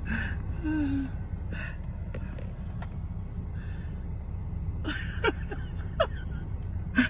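Steady low rumble of a car heard from inside its cabin, with a few short breathy vocal sounds about a second in and again about five to six seconds in.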